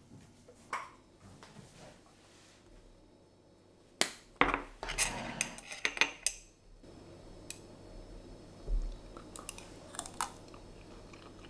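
Wooden chopsticks and a spoon clicking and scraping against a ceramic dish: a cluster of sharp clicks about four seconds in, then scattered lighter clicks.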